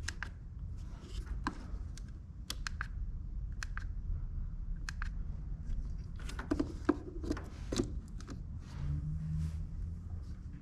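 Light plastic clicks and taps from handling and pressing the buttons of a Rough Country switch panel keypad. The clicks come singly, with a quick run of them about six to eight seconds in, over a low steady hum.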